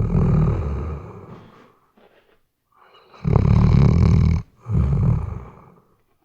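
Weimaraner snoring in its sleep: rattling, low-pitched snores on its breaths. One fades out early, then after a short pause comes a long loud snore about three seconds in, followed closely by a shorter one.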